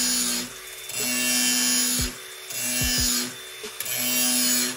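Cordless DeWalt angle grinder sharpening the cutting edge of a steel lawn mower blade clamped in a vise. It makes about four grinding passes of roughly a second each, and the sound drops between them as the disc comes off the edge.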